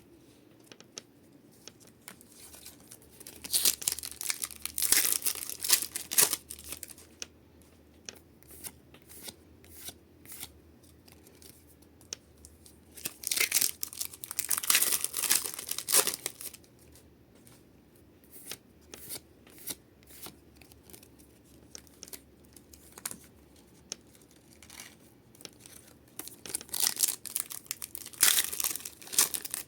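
Pokémon card booster pack wrappers being torn open one after another, in three bursts of tearing and crinkling about ten seconds apart, with light clicks and taps in between.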